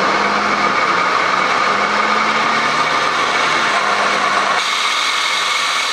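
BMW 520d xDrive's drivetrain running with the car up on a lift and the wheels driven under throttle: a steady whine over a grinding rumble from the differential, which the mechanic suspects has failing gears or bearings. The low rumble drops away about four and a half seconds in.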